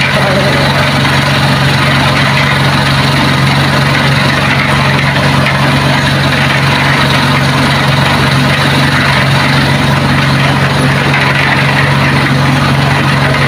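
Small gasoline engine of a portable drum concrete mixer running steadily at a constant speed, with a strong low hum.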